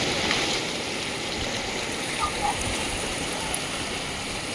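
Steady rush of fast-flowing rainwater runoff after heavy rain.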